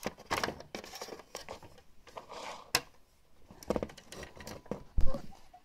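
Plastic toy pet figures tapping and scraping on a plastic toy playhouse floor as they are moved by hand, in a run of small clicks and rubs, with a louder thump near the end.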